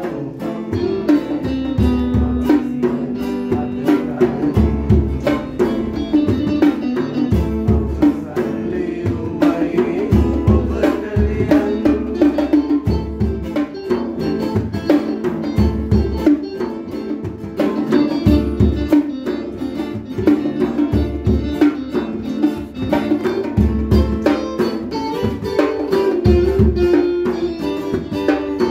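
Small calypso band playing: a hand-beaten conga drum keeps the rhythm under an acoustic guitar and an electric guitar.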